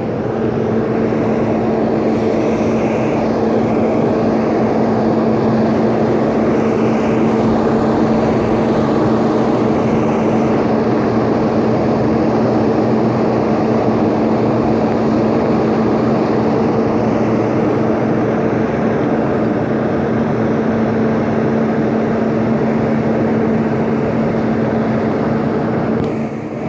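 A loud, steady mechanical drone with a constant low hum, unchanging until it eases off just before the end.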